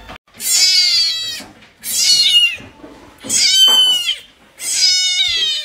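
A young grey-and-white kitten meowing four times in a row; each call is loud and high-pitched and lasts about a second.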